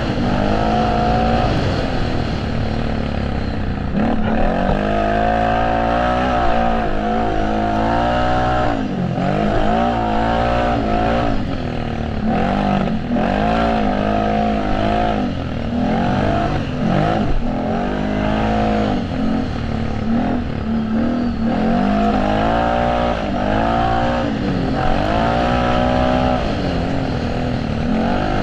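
Racing ATV (quad) engines revving hard, the pitch climbing and dropping again and again as they accelerate, shift and back off, with more than one machine heard at once at times.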